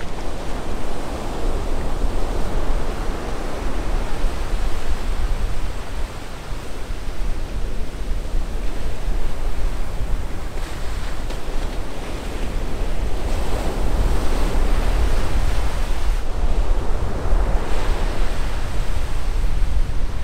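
Ocean surf breaking and washing up the beach, swelling twice as waves come in, with wind rumbling on the microphone.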